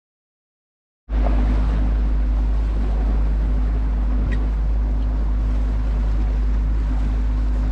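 Boat's outboard motor running steadily under way, with heavy wind rumble on the microphone; it starts suddenly about a second in.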